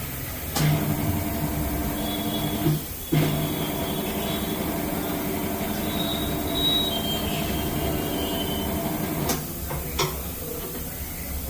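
Tyre-changing machine's electric motor turning the turntable in two runs, each starting and stopping with a clunk, as the old motorcycle tyre is worked off the rim.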